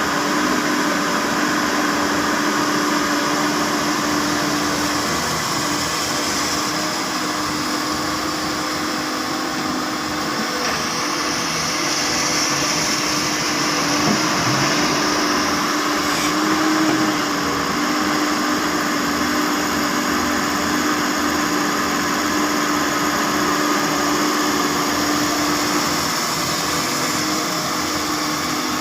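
Excavator's diesel engine running steadily under work, a constant machine drone with a steady hum.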